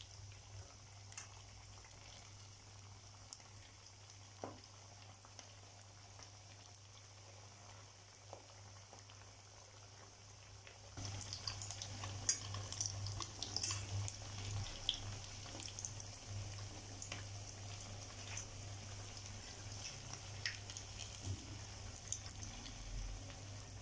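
Potato croquettes frying in hot oil in a pan, a faint sizzle with scattered crackles that grows louder about halfway through. A low steady hum runs underneath.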